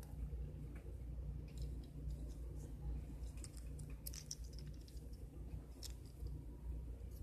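Pet rat gnawing dry macaroni shell pasta: irregular small crunches and clicks of its teeth on the hard pasta, in little clusters, over a steady low hum.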